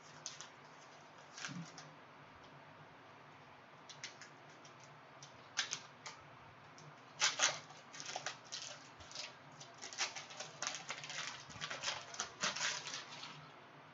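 A trading-card pack being opened and handled: the wrapper crinkles and crackles, and the cards click and slide, in scattered bursts that turn into a busy run of crackling for the last several seconds.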